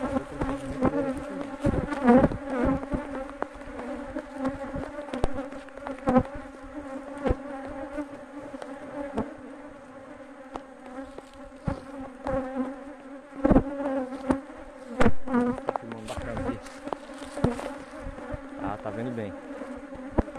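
Honeybees buzzing around an opened hive, a steady hum, with several sharp knocks and bumps from the wooden hive box and lid being handled.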